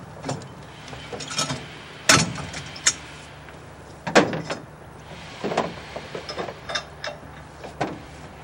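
Irregular metal clicks, clanks and rattles of tie-down hardware being worked by hand: ratchet straps being hooked and tightened on one ATV while a receiver-hitch ATV lock is set on another.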